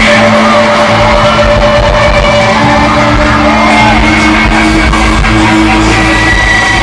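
Rock band playing a song live at high volume, with electric guitar and sung vocals, heard from within the crowd.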